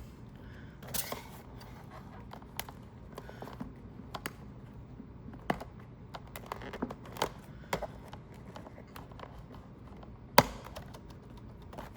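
Scattered light clicks and taps of a diecast car's box being handled while its tabs are cut open, with one sharper, louder click near the end.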